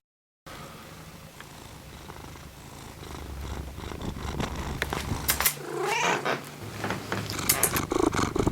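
A cat purring steadily, growing louder, with a short meow-like call about six seconds in.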